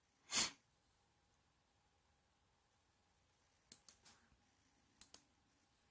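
Computer mouse clicking in a quiet room: two quick double-clicks about a second apart in the second half, after a short soft noise just after the start.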